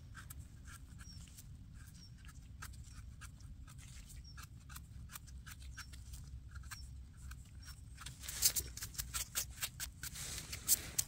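Small knife scraping and paring dirt from the stem base of a freshly picked porcini, a string of soft scrapes and clicks. About eight seconds in come quicker, louder strokes, a small brush sweeping the mushroom clean.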